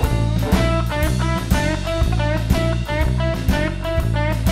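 Background music: guitar playing over a steady drum beat.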